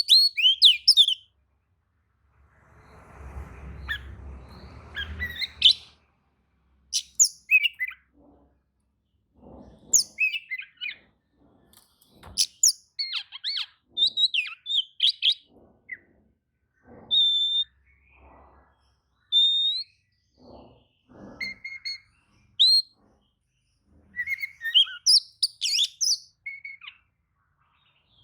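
Oriental magpie-robin (kacer) singing: short, varied phrases of clear whistles, trills and chirps with brief pauses between them, the kind of agitated territorial song that sets other magpie-robins answering. There is a low hiss about three to six seconds in.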